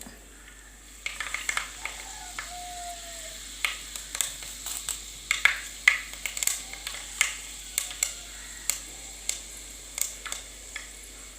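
Fenugreek seeds spluttering in hot oil: irregular sharp pops and crackles, some loud and some faint, over a faint sizzle, starting about a second in.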